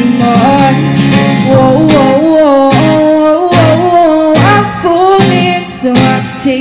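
A woman singing live over her own strummed acoustic guitar, the voice holding long, gently bending notes between the guitar's regular strums.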